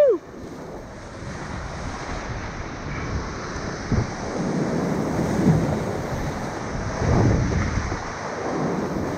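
Strong wind buffeting the microphone over the rush of surf and water while kiteboarding, swelling gradually, with a short thump about four seconds in and a louder gust or splash around seven seconds in.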